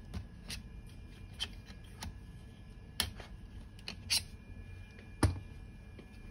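Clicks and knocks of hands unclamping a camera from a DJI RSC 2 gimbal's quick-release plate and handling the gimbal's plastic and metal arms, with a louder knock about five seconds in.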